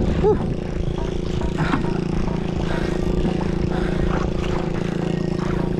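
A boat engine running at a steady drone, with faint small clicks from a conventional jigging reel being cranked.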